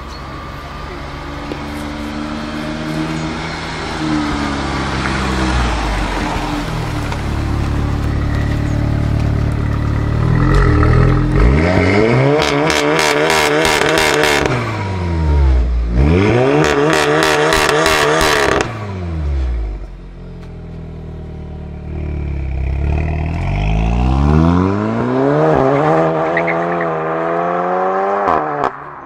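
A tuned Volkswagen Golf 7 R's turbocharged four-cylinder engine through a loud custom exhaust. It pulls away, then is revved hard twice in the middle, each rev climbing and then dropping back, then climbs steadily again under acceleration and cuts off suddenly near the end.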